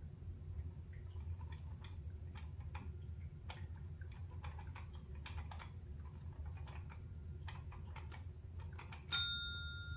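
Scattered light clicks and taps, then about nine seconds in a service tap bell is struck once and dings, its clear ring fading slowly.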